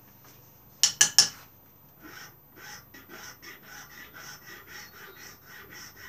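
Three sharp knocks close together about a second in, then a small hand file rubbing back and forth over a soft London plane wood stick handle clamped in a vice, in short even strokes about two to three a second.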